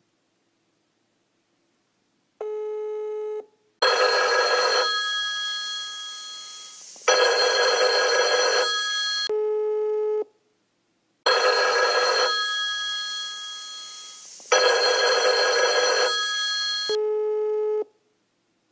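Telephone ringback tone, a steady low beep about a second long heard three times, alternating with a telephone bell ringing in loud bursts that each fade over about three seconds. The call is ringing out unanswered.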